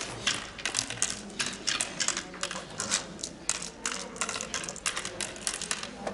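Oware seeds clicking one by one into the pits of a wooden oware board as a player sows them, about three clicks a second.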